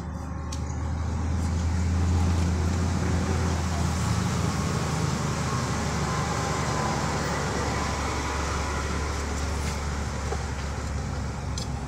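A motor vehicle's engine running close by: a low, steady rumble that swells about two seconds in and holds.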